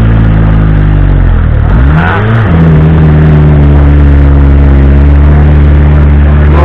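Off-road 4x4's engine held at high revs as it claws through deep mud. The revs sag briefly about two seconds in and climb back, then hold steady.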